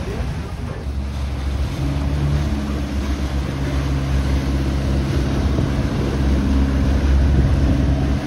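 Boat engine running steadily under way, a low hum that firms up about a second in, over the wash of choppy lagoon water and wind noise on the microphone.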